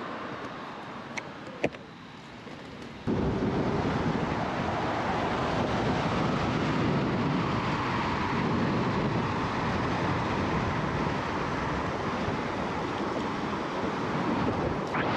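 Two sharp clicks, then about three seconds in a loud, steady rush of wind noise on the microphone begins suddenly, as the electric bike gets under way.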